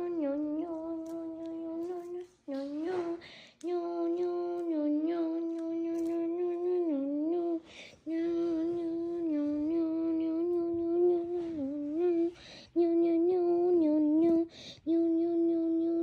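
A person's voice humming one long, steady note over and over, the pitch sagging slightly now and then, broken four times by short breaths.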